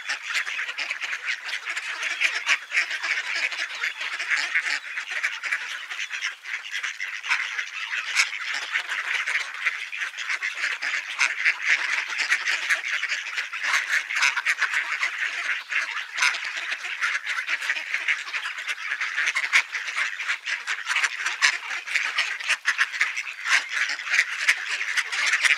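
A flock of ducks calling and chattering, a steady dense babble of many overlapping quacks that runs on without a break.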